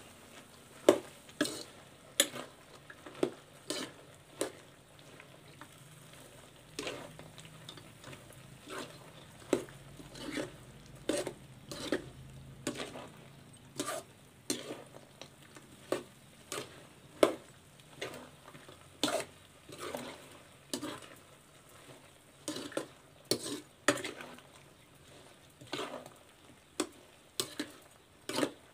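A spatula scraping and knocking against a kadhai, one or two irregular strokes a second, as chopped ridge gourd is stirred while it fries in oil, with a soft sizzle underneath.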